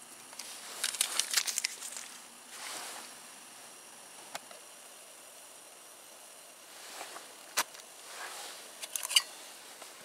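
Small handling sounds at a camp stove: a burst of crinkling and clicks about a second in, then scattered single clicks, and a few more clicks near the end as the cook pot is picked up and lifted off the burner.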